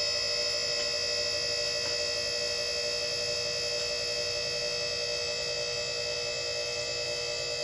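Steady machine hum with a high-pitched whine over it, unchanging in pitch and level.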